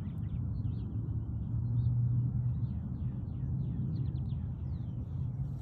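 Birds chirping over a steady low rumble.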